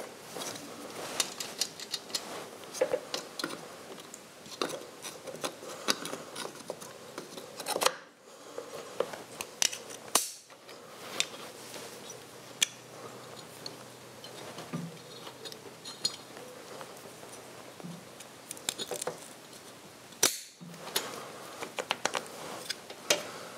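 Scattered small metallic clicks and taps of hands working on a Triumph Tiger 100 engine's fuel pipe, HT lead and spark plug cap by the carburettor; the engine is not running.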